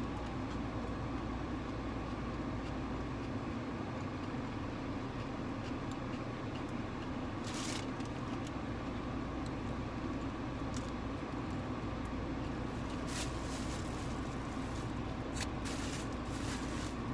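Steady hum inside a car, with a brief rustle about seven seconds in and a few small clicks later on.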